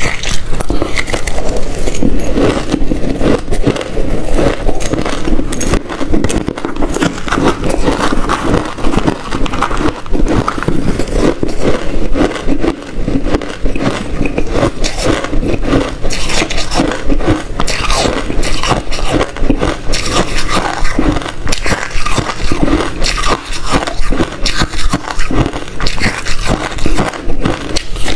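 Close-miked crunching of crunchy white freezer ice as a person bites and chews spoonfuls of it: a dense, continuous run of small crisp crunches.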